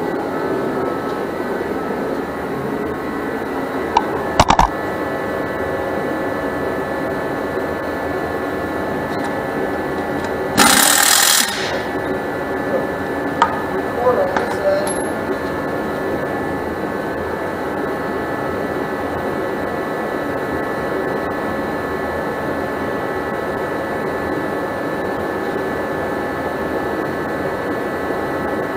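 Steady machine hum in a workshop with several fixed tones. A few sharp metallic clinks come about four seconds in, a short loud hiss of about a second comes near eleven seconds, and more light tool clinks follow.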